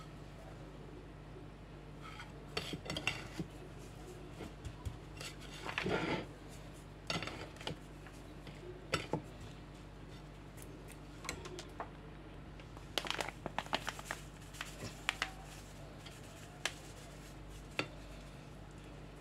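Hands pressing and turning raw chicken pieces in breadcrumb coating on a ceramic plate: irregular clicks and taps against the plate with short rustles of crumbs, over a steady low hum.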